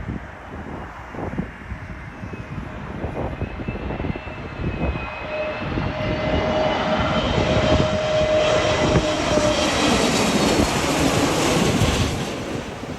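Airliner's engines passing on a landing approach, their whine growing louder to a peak about two-thirds of the way in and then fading, with strong gusting wind buffeting the microphone.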